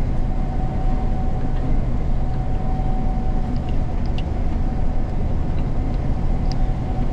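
Gleaner combine running steadily while harvesting soybeans, heard from inside the cab: a continuous low drone with a constant whine over it, and a few faint ticks.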